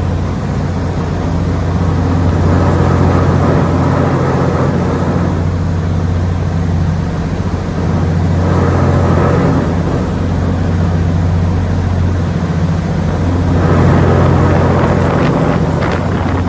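A ship's diesel engine drones steadily on board the ferry New Kasaoka, a constant low hum. Over it a rushing noise swells and fades every few seconds.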